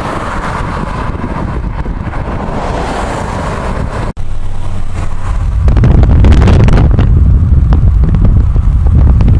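Steady noise of a car on the move, then, after a cut about four seconds in, a louder deep rumble of wind buffeting the microphone, with crackles.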